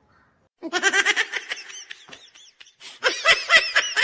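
Laughter in quick, high-pitched bursts. It starts after a brief silence and swells again near the end.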